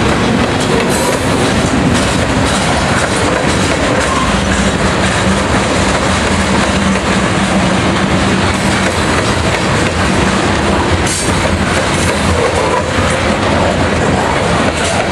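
Coal train's open-top coal cars rolling past close by: a loud, steady rumble and rattle of steel wheels on the rails.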